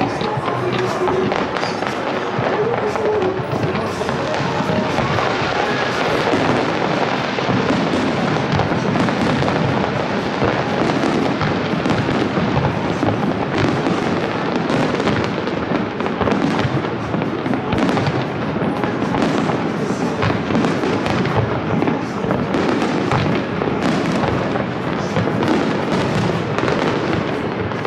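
A fireworks display going off without a break: a dense, steady stream of crackles, pops and bangs from many shells bursting in quick succession.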